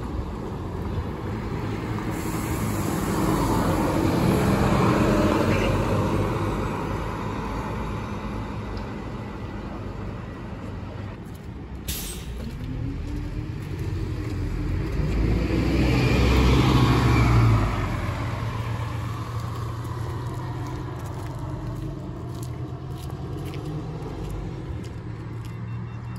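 City buses in street traffic: one bus passes, its engine and tyres swelling to a peak about five seconds in. After a break, a bus at a stop runs and pulls away, its engine hum growing to the loudest point about seventeen seconds in, then settling back to traffic rumble.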